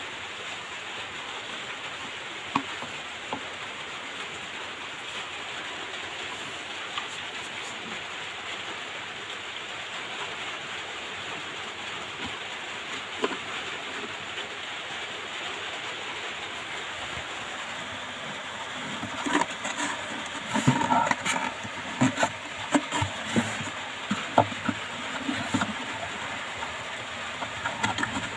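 Steady hiss with a few scattered clicks. In the last third comes a run of irregular knocks and rattles from a wooden speaker cabinet being handled.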